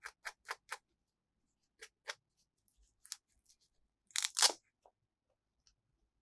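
Hands handling small plastic toy pieces and packaging: a run of sharp clicks and taps, four in quick succession at first and a few more spaced out, then a louder brief tearing crinkle a little past four seconds.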